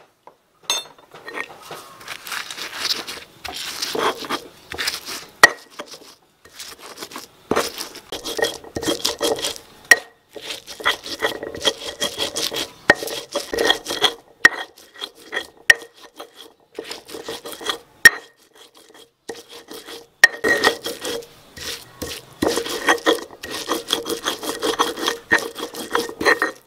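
Stone pestle grinding roasted chillies and spices into a paste on a stone mortar (ulekan and cobek): gritty rubbing strokes in bouts with short pauses, and a few sharp knocks of stone on stone.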